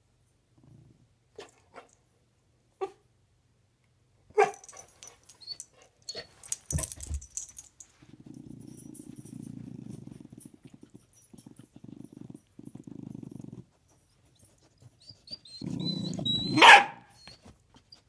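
Corgi growling from under a bed in long low rumbles, broken by a few short pauses, and starting again near the end with one sharp, loud bark. Before the growling there are a few knocks and rustles.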